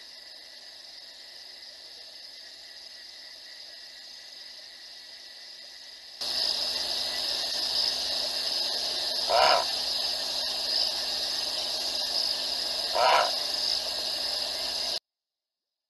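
Steady chorus of night insects, louder from about six seconds in. Two short calls from another animal sound about four seconds apart. The sound cuts out suddenly near the end.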